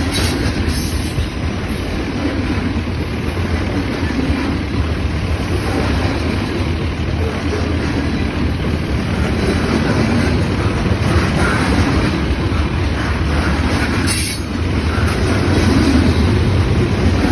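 Norfolk Southern freight train's cars rolling past with a steady, continuous rumble of wheels on rail, growing a little louder near the end.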